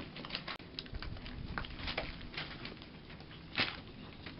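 Newspaper rustling and crackling under Schipperke puppies' paws as they scramble around a chew toy, with scattered small clicks and a sharper click about three and a half seconds in.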